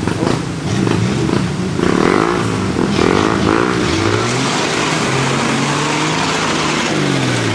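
Old four-wheel-drive pickup's engine revving under load as it drives through deep mud, its pitch swinging up and down, then climbing about halfway through and holding before dropping near the end. From about halfway, a rush of spinning tyres and spraying mud joins it.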